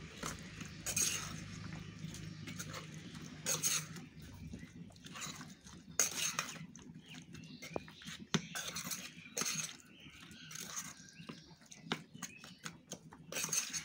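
Poppy-seed paste with onion, green chillies, salt and mustard oil being mixed in a small tiffin container. Irregular wet stirring strokes every second or two, with a few sharp clicks against the container.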